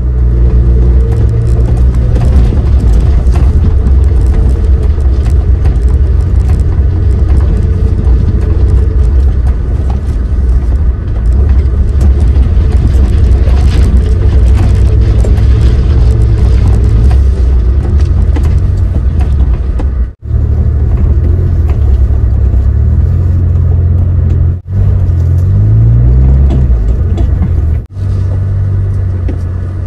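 Suzuki Jimny JB23's small three-cylinder turbo engine running under load while driving off-road. Its revs rise and fall repeatedly in the latter part. The sound cuts out briefly three times.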